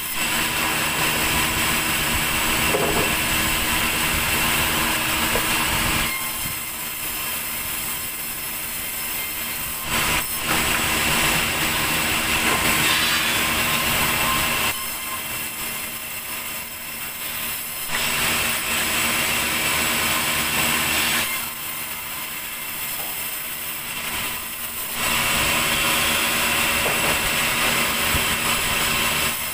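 Large vertical sawmill band saw running steadily, with four louder stretches of several seconds each as the blade cuts through a thick wooden slab, between quieter stretches of the saw running free. A sharp knock about ten seconds in.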